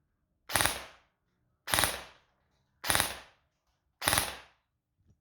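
Airsoft electric gun with a 25k high-speed motor firing four short bursts on burst mode, about one a second, each a quick rattle of shots.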